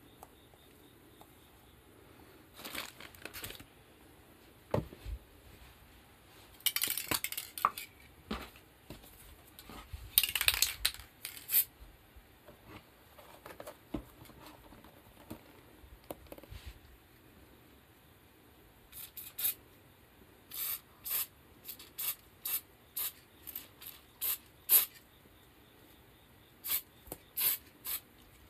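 Aerosol spray can hissing onto a leather shoe in short bursts: two of about a second, then a quick run of brief puffs near the end, with the odd knock from the shoe being handled.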